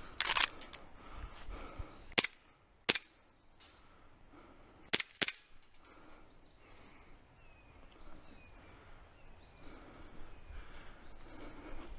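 Sharp cracks of a gas blowback airsoft pistol, a KWA ATP Auto, firing about five shots in the first five seconds: single shots, then a quick pair. After that a bird repeats a short high call about once a second.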